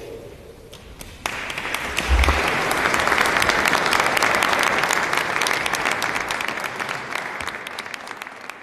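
Congregation applauding: many hands clapping together. The applause starts abruptly about a second in and slowly dies away near the end.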